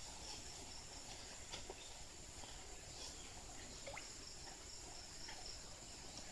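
Faint, steady high-pitched insect chorus, crickets or similar, with a few soft ticks and one short rising chirp about four seconds in.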